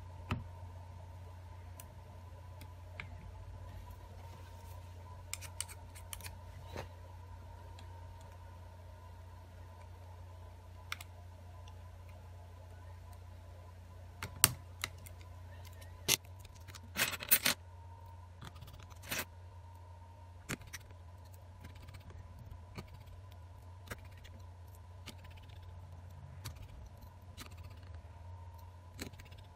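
Scattered small clicks and taps of smartphone parts being handled and pressed into place on a silicone mat during reassembly, with a quick cluster of louder clicks a little past halfway. A steady low hum runs underneath.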